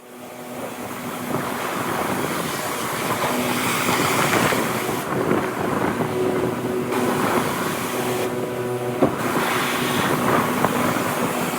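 Wind buffeting the microphone over the wash of sea waves, a steady rushing noise that fades in at the start.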